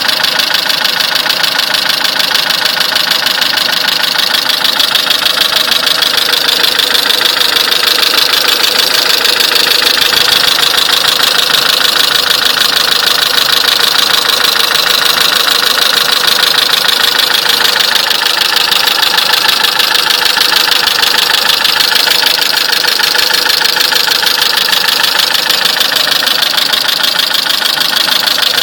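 Renault Megane II's 1.6-litre K4M petrol engine idling with a fast, even knock. The owner does not know its cause.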